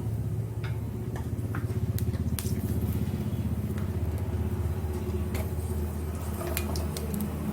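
Mustard and fenugreek seeds popping in hot oil in a small tempering pan, as irregular sharp crackles over a steady low hum.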